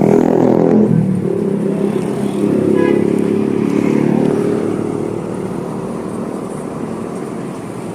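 Bus's diesel engine pulling away, its sound fading as the bus moves off.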